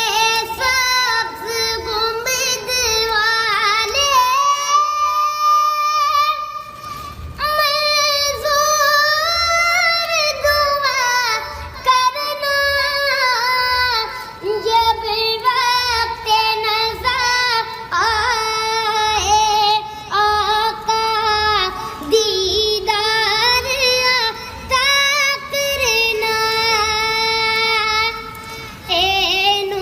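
A young female voice singing an Islamic devotional song in long, ornamented phrases with gliding pitch. A soft, steady beat runs underneath.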